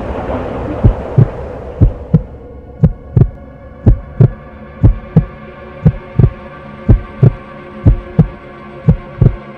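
A slow heartbeat, about one lub-dub pair of low thumps a second, over a steady low hum. A rushing road noise fades out over the first two seconds as the beats begin.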